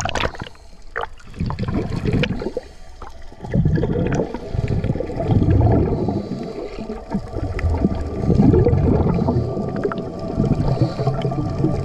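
Underwater sound of scuba divers breathing through their regulators: low, bubbling rumbles of exhaled air that surge and fade every couple of seconds.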